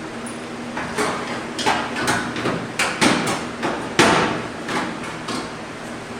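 Hammer blows on sheet steel as a 1974 VW Beetle's replacement spare tire well panel is worked into place: about a dozen irregular, ringing strikes over some four seconds. A steady low hum runs underneath.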